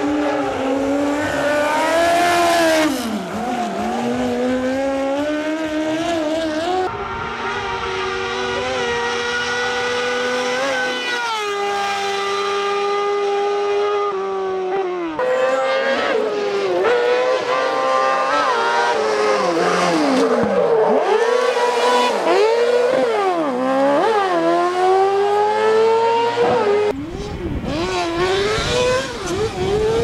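Kart cross buggies' high-revving engines at full throttle, pitch climbing then dropping sharply at each gear change, again and again. Several runs follow one another, with abrupt changes between cars.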